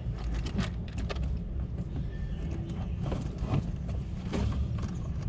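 Irregular clicks and knocks of car door parts and wiring being handled, over a steady low rumble.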